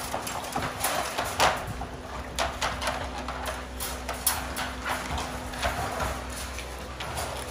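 Wire dog crates rattling and clanking in irregular knocks as XL American Bully dogs paw and jump against them, with the loudest knock about a second and a half in.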